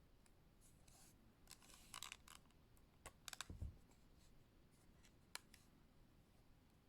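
Faint, close handling of the plastic case of a Western Digital My Passport external hard drive: light scratchy rustles and small clicks. A quick run of clicks with a soft low thump comes about halfway through, and one sharp click follows a couple of seconds later.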